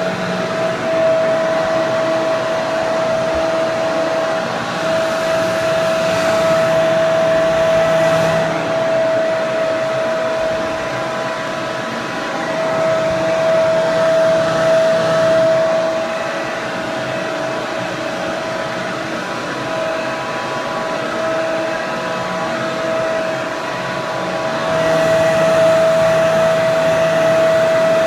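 Hair dryer running steadily: rushing air with a high, steady motor whine, its level swelling and easing slightly every few seconds.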